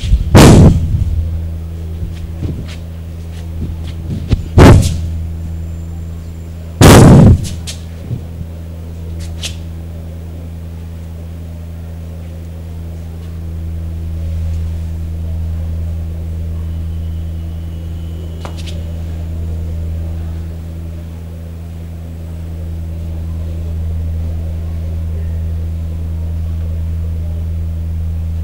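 Three loud thuds in the first eight seconds, each overloading the recording, with a few lighter knocks between them, over a steady low hum.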